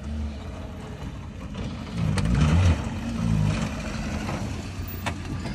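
Maruti Suzuki WagonR's petrol engine revving as the hatchback is driven over rough dirt, its pitch rising and falling a couple of times through the middle.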